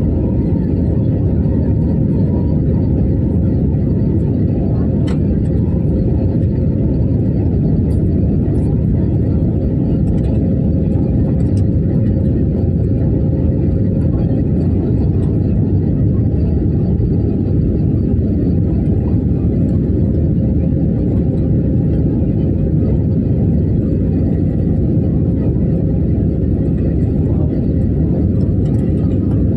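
Steady low rumble of jet engines and rushing air heard inside a jet airliner's passenger cabin on descent, with a faint steady hum on top.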